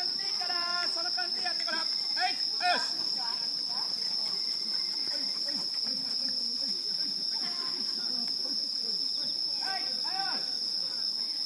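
Night insects singing in a steady, unbroken high-pitched chorus, with voices talking at the start and again near the end.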